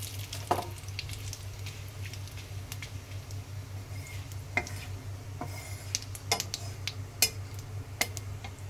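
Cumin seeds and bay leaves frying in hot oil in a kadhai: a light sizzle with scattered sharp clicks and scrapes as a metal spatula stirs against the pan, over a steady low hum.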